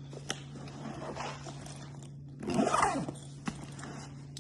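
Objects being handled and moved about in a tool bag: a few sharp clicks and a louder rustling scrape about two and a half seconds in, over a steady low hum.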